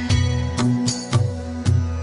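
Background music with a steady beat over sustained low notes.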